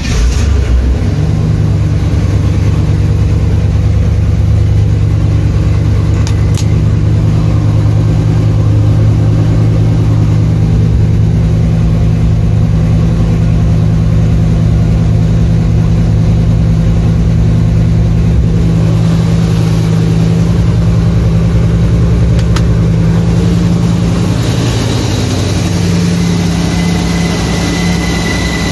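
1985 Chevrolet Camaro engine catching at the very start and then running steadily through its new exhaust.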